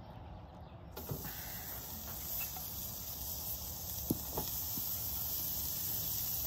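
Chuck eye steaks sizzling as they are laid on a cast iron grill grate heated to almost 700 degrees over charcoal. The sizzle starts suddenly about a second in and holds steady, with a couple of light knocks near the middle as a second steak goes down.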